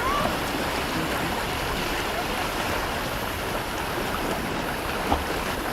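Beach ambience: a steady wash of surf with faint, distant voices of beachgoers mixed in. A brief knock sounds about five seconds in.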